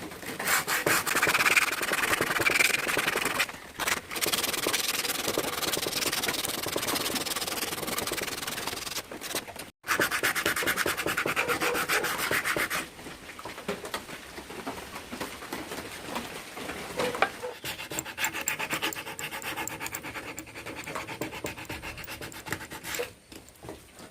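Wooden carving being abraded by hand, fast back-and-forth rubbing strokes of sandpaper or a rasp on wood. There are brief breaks a few seconds in and again near the middle, and the strokes are quieter in the second half.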